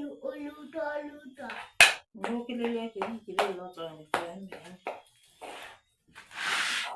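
Children's voices chanting, broken by sharp hand claps, the loudest about two seconds in, with a short hiss near the end.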